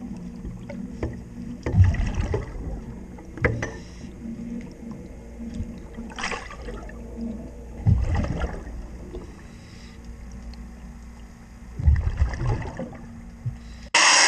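Underwater sound at a boat's hull during sea chest cleaning: a steady low hum with a rumble under it, broken by five louder bursts about a second long.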